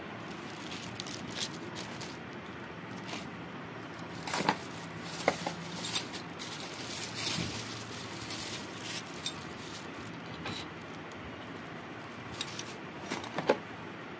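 Plastic packaging crinkling and small parts clicking and knocking as hammer drill accessories are handled, with scattered rustles that come thickest about four to six seconds in and again near the end.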